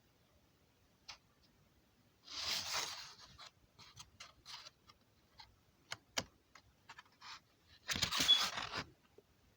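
Faint rustling and handling noise: two short rustles, about two and a half and eight seconds in, with scattered small clicks between.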